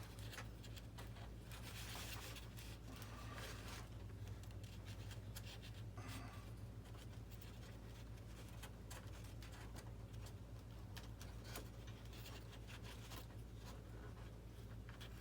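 Faint hand-handling noises of wire leads and small plastic parts on a model airplane: light rubbing, scratching and scattered small clicks, over a steady low electrical hum.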